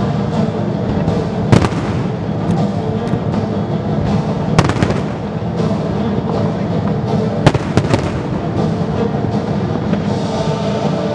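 Aerial firework shells bursting with sharp bangs, the loudest about a second and a half, four and a half and seven and a half seconds in, over steady music playing with the display.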